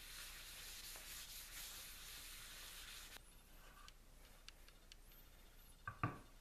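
Cloth rubbing mineral oil into the end grain of a maple-and-walnut cutting board, a steady soft rubbing that stops about three seconds in. A few light clicks follow, then a sharp knock near the end as the wooden board is set down on the bench.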